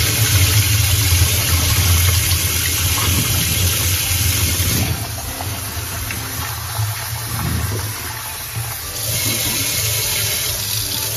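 Kitchen tap running into a bowl of soaking basmati rice in a steel sink, with hands swishing and rubbing the grains through the water to rinse them. The rush of water drops somewhat for a few seconds in the middle, then picks up again.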